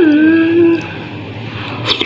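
A woman's closed-mouth "mmm" of enjoyment while tasting: a brief rise in pitch, then held on one steady note for under a second. A short click sounds near the end.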